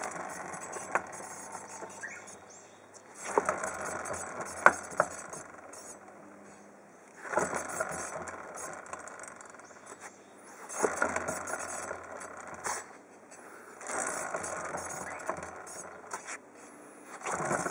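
Abnormal noise from a Honda Grom motorcycle with its engine stopped. A scraping, rattling sound with sharp clicks comes in repeated spells of two to three seconds, about every three and a half seconds.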